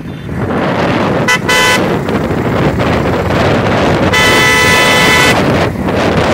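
Vehicle horns honking over steady road and wind noise from moving along a highway: a short double toot about a second in, then one long blast lasting about a second in the second half.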